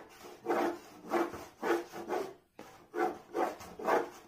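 Pencil drawing lines on paper over a wooden drawing board: a run of short scratching strokes, about two a second, with a brief gap about halfway.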